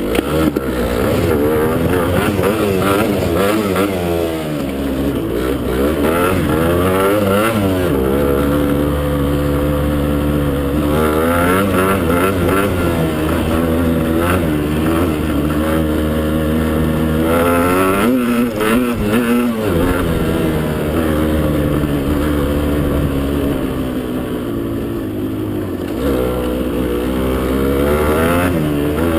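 Motocross bike engine revving up and down as it is ridden, its pitch repeatedly climbing under throttle and dropping back.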